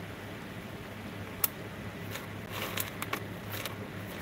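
Small copper-foiled sea glass pieces clicking and clinking on a workbench as a gloved hand sorts through them: one sharp click a little over a second in, then a quick run of clicks near the end. A steady low hum runs underneath.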